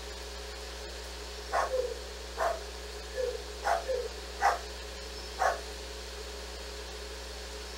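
Dog barking: a run of about seven short barks, starting about a second and a half in.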